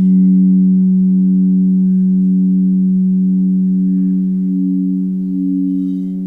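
Singing bowls ringing with a long, sustained low hum that swells in at the start, the tone pulsing gently about once a second.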